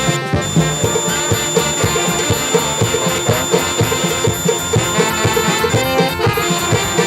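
Live band playing social-dance music: pitched instruments over a steady drum beat.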